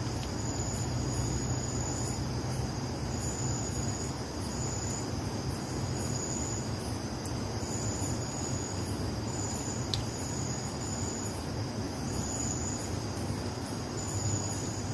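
Night insects, crickets, calling in a chorus: one steady high trill runs on while a second, higher trill comes in short spells every second or two, over a low steady hum.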